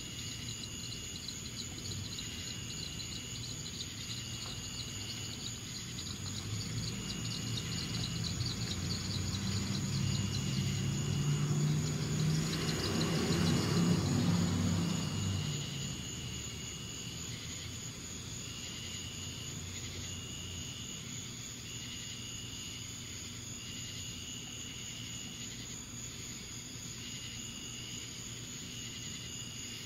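Night insects calling: one steady high chirr and another in repeated calls about a second long. A vehicle passes partway through, its sound swelling from about six seconds in, loudest around thirteen seconds, then fading.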